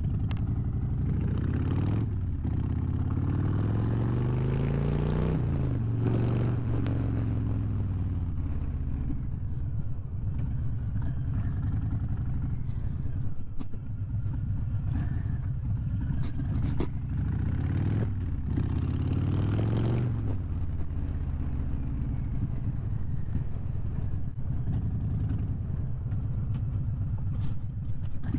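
Harley-Davidson V-twin motorcycle engine heard from the rider's seat. It accelerates with a rising pitch a couple of seconds in, eases off around six seconds, then pulls up again and slows once more around twenty seconds, running low and steady for the rest.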